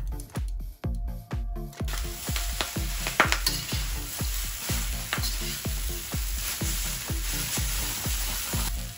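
Egg noodles and vegetables sizzling in a hot wok as they are stirred and tossed with a spatula; the frying hiss starts about two seconds in. Background music with a steady beat runs underneath.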